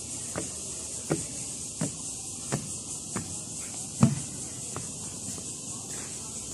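Footsteps on a wet wooden deck at a steady walking pace, about one step every 0.7 seconds, the loudest about four seconds in. A steady high hiss runs underneath.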